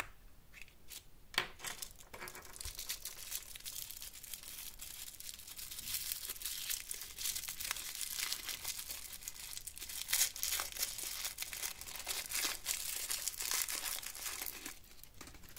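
A small plastic capsule ball clicking open, followed by a thin printed plastic wrapper crinkling and tearing as it is unwrapped by hand. The crinkling goes on in dense little crackles with scattered louder tears.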